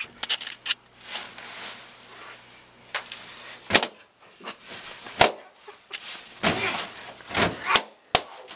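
Party balloons popping one after another: several sharp bangs a second or two apart, the loudest near the middle and toward the end. Between the pops comes the rustle and squeak of balloons being handled.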